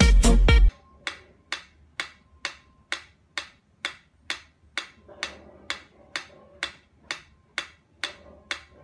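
Loud music cuts off in the first second, then a steady, even ticking follows at about two ticks a second.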